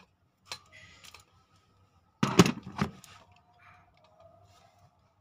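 Clicks and rattles of hand tools (pliers, then a screwdriver) working on a wall light switch and its wiring, with a louder cluster of knocks about two seconds in.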